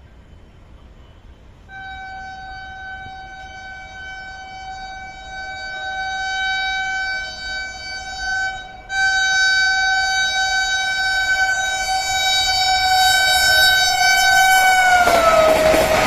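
A Vande Bharat Express train horn sounds in two long, steady blasts as the train approaches, growing louder. The horn's pitch drops as the train passes close by, and the rush of the high-speed train takes over near the end.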